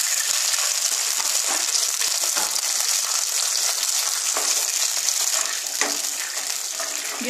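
Water added to hot oil with fried mustard seeds, curry leaves and green chillies sizzles steadily in a non-stick pan, dying down slightly near the end. A wooden spatula stirs through the mixture.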